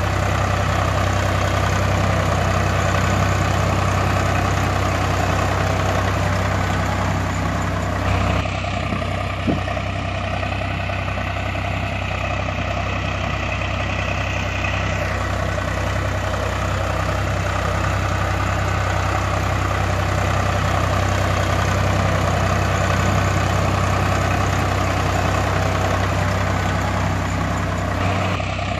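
Diesel tractor engine sound effect idling steadily with an even low throb. The sound shifts abruptly about eight seconds in and again near the end.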